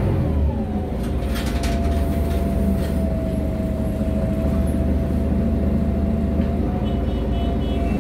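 Mercedes-Benz O345 Conecto city bus running, heard from inside the passenger cabin: a steady low diesel drone with a drivetrain whine that drops in pitch just under a second in and then holds steady. Interior fittings rattle briefly a second or two in, and a short high beeping comes near the end.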